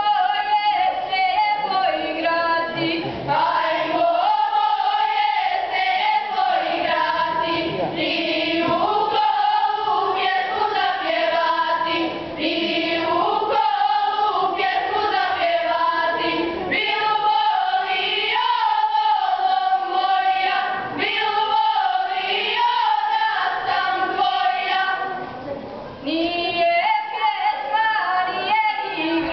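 Girls' choir singing a Serbian folk song, unaccompanied, with a brief pause between phrases near the end.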